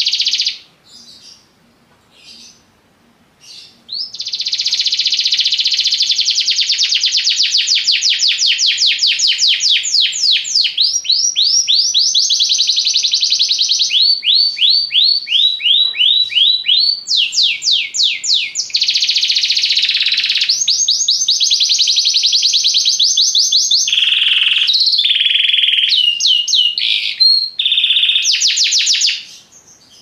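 Domestic canary singing. After a brief pause it sings a long song of rapid trills, each a fast run of repeated notes, shifting in speed and pitch from one phrase to the next. The song starts about four seconds in and stops shortly before the end.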